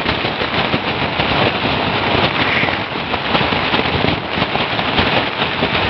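Thin plastic sheet flapping and crackling hard in a strong sea wind, right against the microphone, over a steady rush of wind noise.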